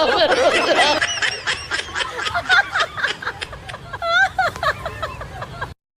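People laughing and giggling in quick, rapid bursts, cutting off abruptly near the end.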